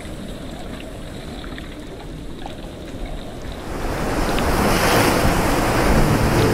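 Wind blowing steadily and fairly quietly, then sea waves breaking and churning against rocks, the surf swelling loud about halfway through.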